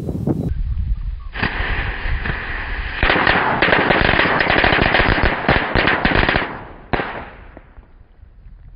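A string of firecrackers going off, a rapid run of cracks for about five seconds starting a second or so in, a final crack near the end, then dying away.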